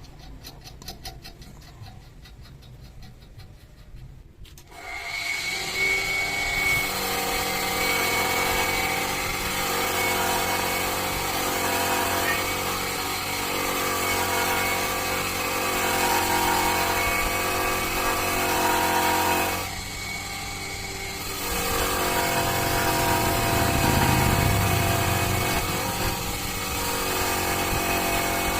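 Handheld electric power tool starting up about four and a half seconds in and running steadily with a high whine, stopping briefly about two-thirds of the way through, then running again.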